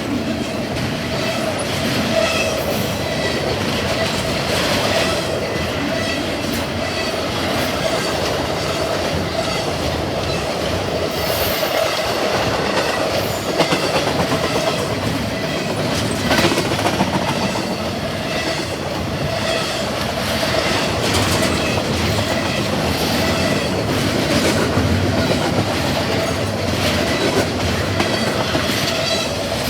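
CSX double-stack intermodal freight train rolling past close by: a steady, loud rumble of railcars with clickety-clack of wheels over rail joints and a thin, steady wheel squeal running under it.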